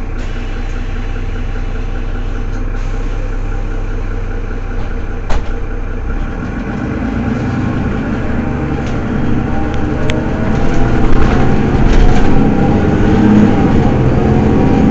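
Mercedes-Benz Citaro city bus diesel engine idling steadily, then from about six seconds in growing louder and rising in pitch as it pulls away under load. A brief knock sounds about five seconds in.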